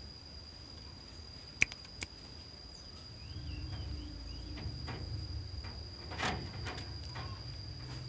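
A cricket trills steadily with one high, unbroken tone. A sharp click comes about a second and a half in, with a smaller one just after. A low rumble rises from about three seconds in, and a brief knock follows a few seconds later.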